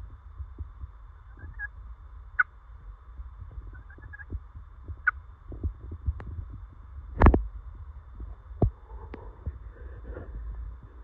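Wild turkey gobbler calling in close: short calls, with a low steady rumble under them. One sharp knock about seven seconds in is the loudest sound.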